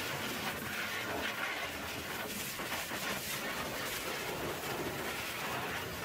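High-pressure water jet from a pressure-washer lance hissing and spattering steadily against the truck's mud-caked metal air-intake housing and chassis.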